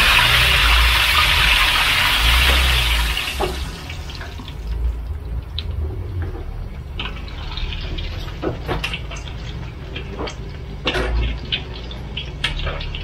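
Boiled duck eggs deep-frying in hot oil in a wok: a loud sizzle that dies down about three seconds in to a quieter crackle with scattered pops of spitting oil.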